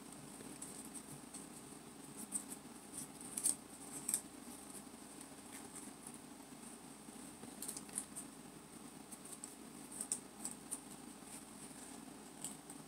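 Quiet paper handling: small folded paper pieces being pressed onto glue, with scattered faint rustles and crinkles over a low steady room hum.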